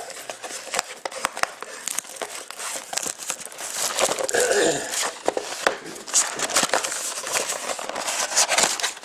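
Plastic shrink-wrap being torn open and crinkled off a sealed box of trading cards, a dense, irregular crackling.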